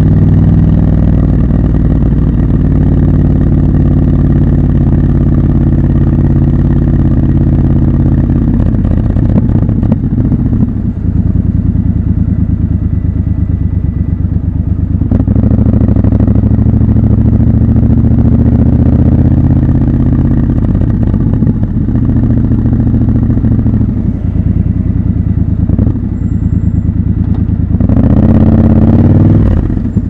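Triumph Scrambler 1200 XC's 1200 cc parallel-twin engine running at low city speed, holding fairly steady revs with a few throttle changes, then rising in pitch as it accelerates near the end.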